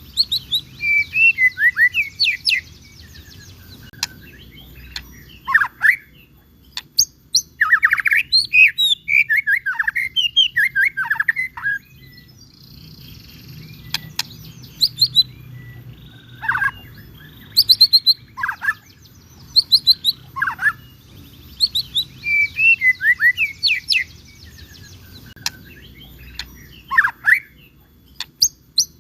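White-rumped shama (murai batu) singing: bursts of rapid, varied whistled phrases with quick downward-sweeping notes, separated by short pauses. A faint low hum runs underneath.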